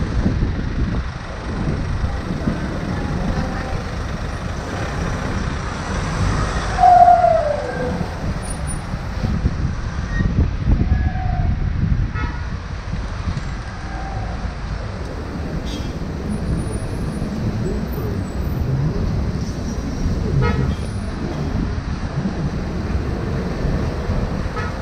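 Road traffic noise with wind on the microphone, with a short, loud tone about seven seconds in that drops in pitch, like a passing vehicle's horn.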